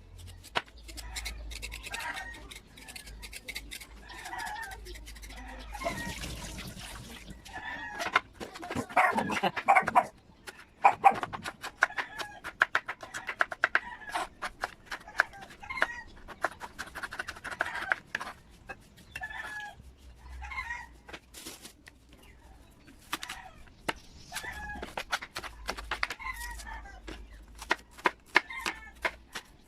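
Chickens clucking and calling in short, repeated bursts, over a steady run of sharp clicks and knocks. The busiest, loudest stretch comes about a third of the way in.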